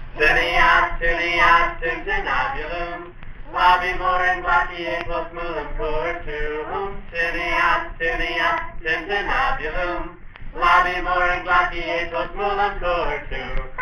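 A school Latin class singing a Christmas carol in Latin, in four sung phrases of about three seconds each with short breaks between them.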